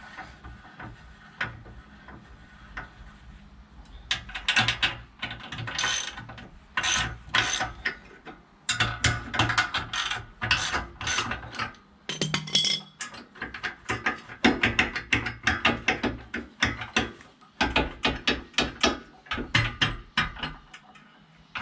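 Socket ratchet wrench clicking in quick runs, turning the nuts onto the bolts of a bike-rack mounting plate. The runs start about four seconds in and come in bursts with short pauses between them.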